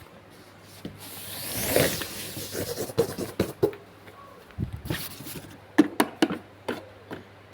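A rubbing, scraping noise that swells over about a second, followed by a run of irregular sharp taps and clicks.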